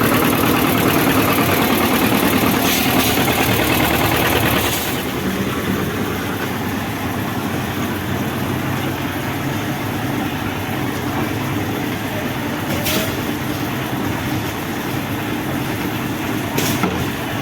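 Concrete mixer machine's engine running steadily, a little quieter from about five seconds in, with two short knocks later.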